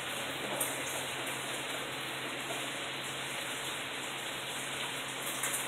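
Heavy hurricane rain falling steadily, an even hiss of rain pouring onto the lawn, street and porch, with a couple of brief sharper crackles of nearby drops.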